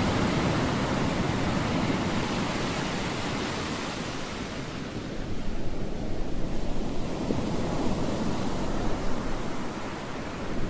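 Wind buffeting the microphone over the rush of water from a moving boat. About five seconds in the upper hiss dulls, leaving a low, gusty rumble.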